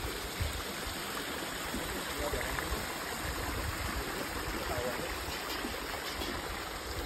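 Shallow mountain stream running and trickling over mossy rocks into a clear pool: a steady rush of flowing water.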